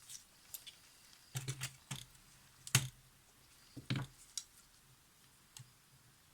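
Irregular small clicks and taps from handling a Polaroid camera body, its screws and small tools, with a quick run of clicks a little over a second in, the loudest tap about three seconds in and another near four seconds.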